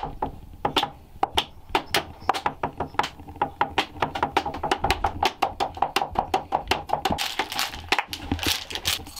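Rapid, irregular clicks and taps, several a second, as of a small hard object being handled, with a few faint voices near the end.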